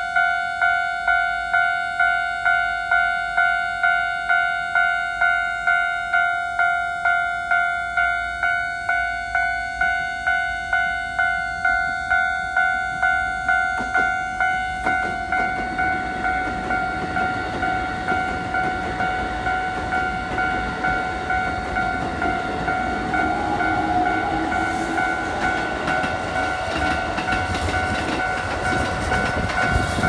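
Level-crossing warning alarm ringing in a steady two-tone pulse, a little under twice a second. From about 15 s in, a Keikyu 1500-series electric train passes close by, its wheels clattering over rail joints while the alarm keeps ringing.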